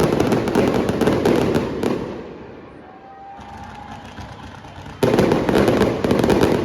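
Fireworks crackling in a dense, rapid volley that fades out about two seconds in, then another volley starting suddenly about five seconds in.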